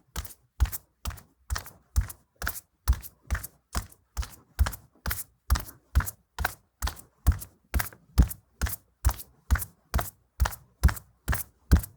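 Heavy footsteps walking on a linoleum floor at a steady pace, about two steps a second. Each step lands as a low thud with a sharp click on top.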